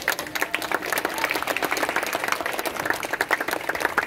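Large crowd applauding, many hands clapping densely and steadily.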